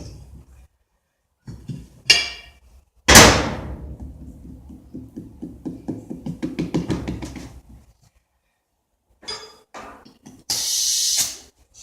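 Knocks and a loud clattering hit about three seconds in, followed by several seconds of rapid rattling, from work on a lawnmower tire and rim. A short hiss sounds near the end.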